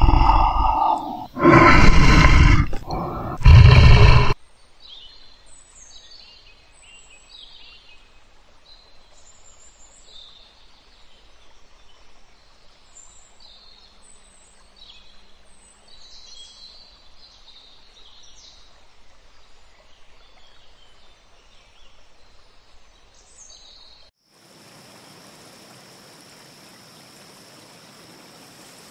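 Tiger roaring, three loud roars in the first four seconds or so. Then faint bird chirping over quiet jungle ambience, and from about 24 s a steady even hiss with a thin high whine.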